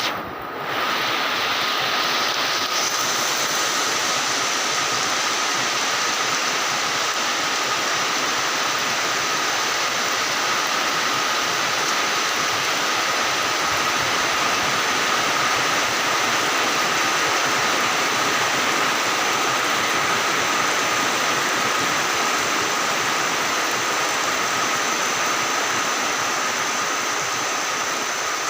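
Steady heavy rain pouring down: a dense, even hiss with a faint thin high tone running through it.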